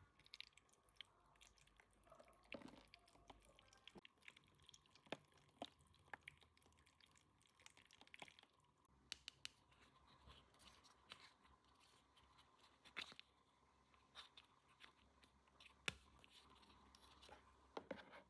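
Faint, irregular clicks, taps and crinkles of small toy pieces and packaging being handled, with a few sharper clicks, the loudest near the end.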